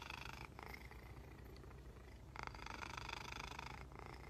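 Domestic cat purring steadily while being scratched around the head and cheeks. The purr is faint, and it swells louder twice, at the start and again past the midpoint.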